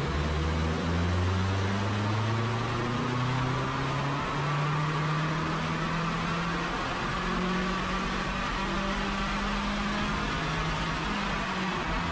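Subaru FB25 flat-four with its CVT, under load on a chassis dyno, its pitch climbing slowly and dipping briefly near the end, with a whine rising along with it. This is a baseline pull on the factory tune, which the tuner finds running very lean and unhappy.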